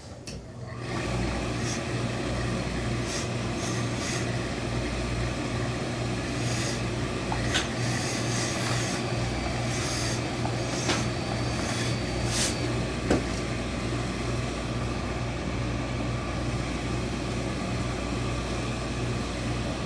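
A steady motor hum starts about a second in and runs on, with short hisses of steam from a hose-fed steam iron pressing a wool suit jacket and a few light clicks between about 6 and 13 seconds.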